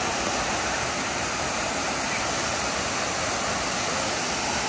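A small waterfall cascading over a rock ledge into a pool: a steady rush of falling water.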